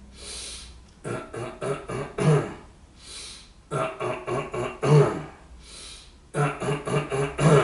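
A man imitating snoring breath. Twice, a hissing in-breath is followed by a run of short, stuttering voiced grunts as the out-breath catches again and again, his enactment of the interrupted breathing of sleep apnea.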